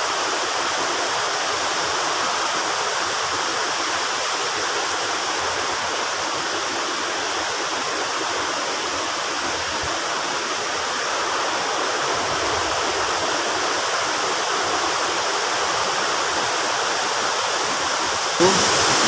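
Rushing water of a mountain stream and waterfall cascade, a steady even rush. It gets slightly louder and brighter near the end.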